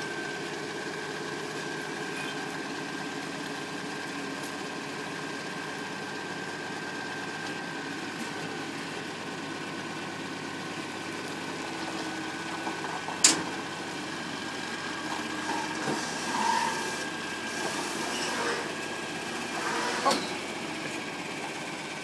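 An engine idling steadily, with a single sharp bang about thirteen seconds in, then a series of knocks and bumps, the last and loudest near the end, as heavy equipment is shifted.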